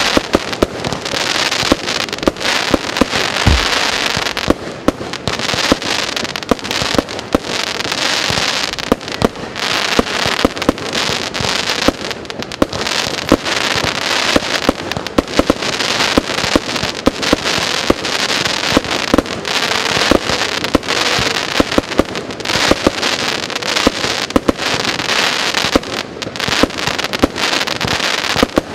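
100-shot, 20 mm firework cake (Golden Spider) firing: a rapid, continuous stream of launch thumps, several a second, over dense crackling from the bursting shells.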